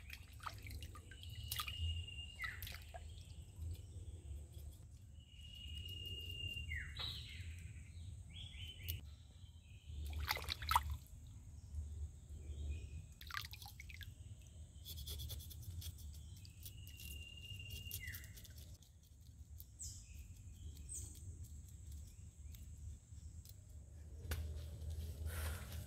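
A bird calls three times, each call a held high whistle that slides down at the end. Scattered light clicks and drips sound over a low, steady rumble.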